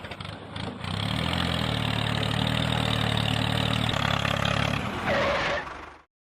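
An engine starting up and running at a steady idle, then cutting off abruptly about six seconds in.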